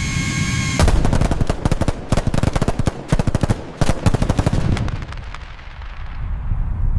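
AI-generated sound of an aircraft cannon firing a rapid burst of automatic fire. The burst starts abruptly about a second in, replacing a steady engine hum, runs for about four seconds, and trails off into a fading rumble.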